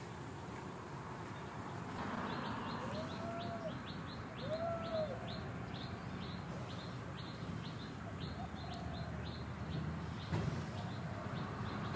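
A bird calling in a quick run of short, high, falling chirps, about three a second, with two short rising-and-falling coo calls about a second and a half apart early on, over a low outdoor background hum.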